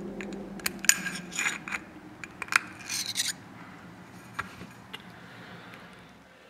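Internal snap ring pliers and a steel snap ring clicking and scraping against the bore of a scooter CVT rear driven pulley as the ring is compressed and pulled out. There are sharp metallic clicks and a brief scrape over the first three seconds or so, then only a few faint ticks.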